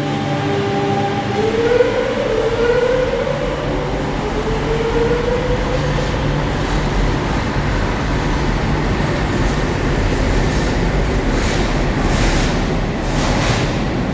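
Madrid Metro series 8000 electric train: a steady electric hum, then a whine from the traction equipment that rises in pitch over the first few seconds as the train accelerates. It gives way to the even rumble of wheels on track, with a few sharper rattles near the end.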